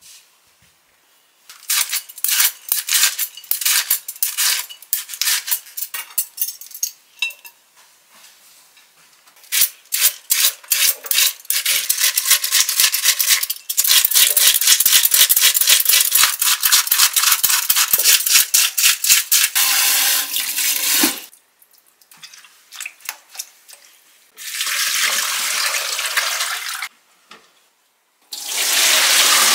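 Cabbage being shaved with a hand-held metal slicer, rapid scraping strokes one after another. Near the end a kitchen tap runs into the sink as the shredded cabbage is rinsed in a plastic colander.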